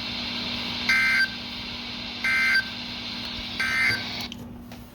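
Emergency Alert System end-of-message data signal: three short bursts of two-tone digital data about 1.4 seconds apart, over steady radio hiss and hum, marking the end of the flash flood warning broadcast.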